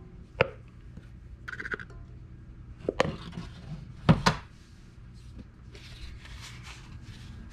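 Kitchenware being handled as ingredients go into a mixing bowl: a few sharp knocks and taps, the loudest a double knock about four seconds in, then soft rustling near the end.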